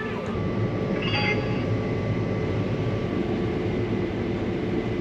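Case IH 8250 combine running steadily under harvest load: an even mechanical drone with a low hum. A brief higher-pitched sound comes about a second in.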